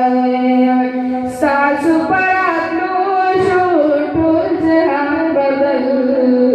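A solo voice sings unaccompanied in the manner of a devotional chant. It holds one long steady note, then moves about a second and a half in through slow, ornamented melodic turns.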